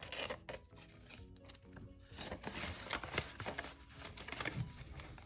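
Crinkling and rustling of a cash envelope and banknotes being handled, loudest about two to three seconds in, over quiet background music.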